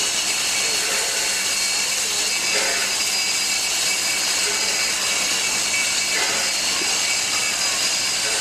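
Steam locomotive 3265 "Hunter" standing with steam escaping from the boiler, a steady, loud hiss that does not let up.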